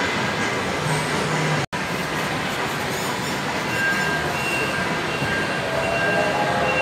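Kiddie ride-on train rolling along a tiled floor with a steady rumbling hiss, and faint high tones joining a few seconds in. The sound drops out for a split second about a second and a half in.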